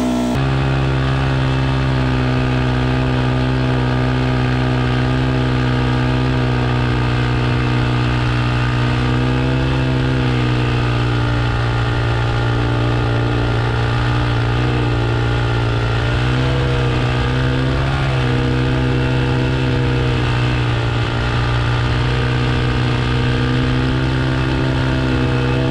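Yamaha YZ450F dirt bike's single-cylinder four-stroke engine held on the throttle through a stationary burnout, its rear tyre spinning on plywood. The engine note holds steady, with slight wavers in pitch around the middle.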